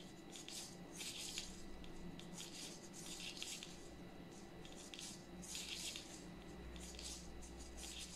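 Hand knitting on metal circular needles: a faint rustle of YarnArt Jeans yarn drawn through each knit stitch, roughly once or twice a second, with small soft clicks of the needle tips, over a faint steady hum.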